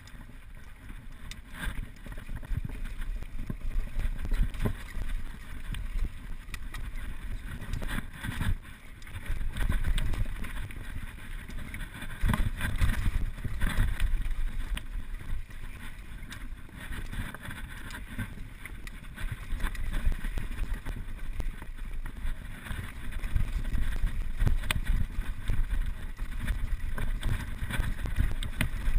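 Wind buffeting the microphone on a downhill mountain bike ride, with tyres rolling over gravel and dirt and the bike rattling and knocking over bumps throughout.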